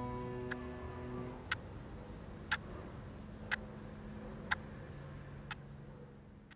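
A clock ticking once a second, five ticks, over a faint steady low hum, as the last piano notes die away about a second in.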